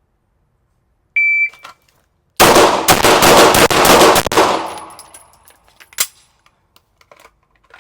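A shot timer beeps once, and about a second later a Glock 34 9mm pistol fires a rapid six-shot Bill Drill string lasting about two seconds, the shots echoing, for a 3-second-flat run. One more single sharp bang follows a little later.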